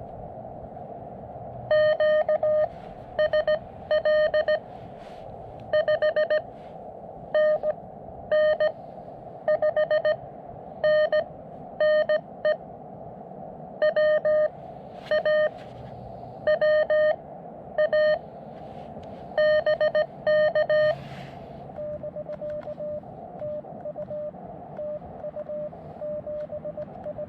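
Morse code (CW) on a portable QRP amateur radio transceiver: a steady-pitched beep keyed on and off in dits and dahs over the receiver's hiss. For about twenty seconds it is loud and sharp, the operator's own sending sidetone; from about 22 seconds a fainter keyed tone at the same pitch follows, the other station's reply.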